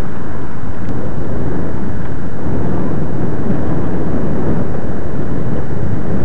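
Loud steady wind rush buffeting the microphone of a camera carried on a moving bicycle.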